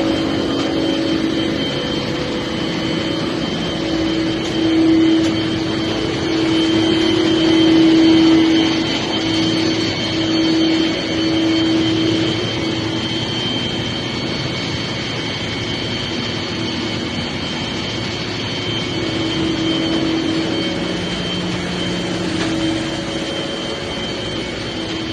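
Large engines and machinery running in an engine room: a loud, steady mechanical din with a steady droning tone and a faint high whine. It swells louder for several seconds in the first half.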